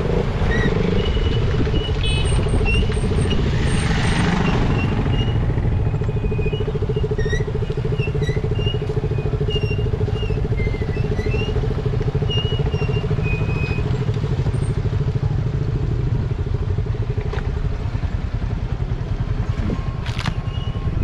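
Motorcycle engine running steadily at an even pitch, with no revving. A series of short high chirps comes and goes through the middle.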